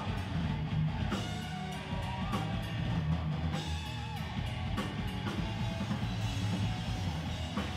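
Live rock band playing through a club PA: a pounding drum kit with bass drum under electric guitars, heard loud from the crowd.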